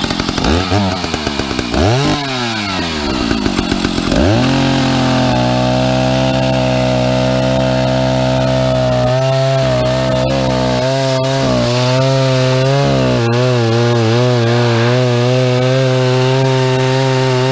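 Stihl 050 AV two-stroke chainsaw revved up and down three times, then held at full throttle from about four seconds in as it cuts through a cedar round. Its pitch sags and recovers under load in the second half. The chain has just been hand-filed and this is its test cut.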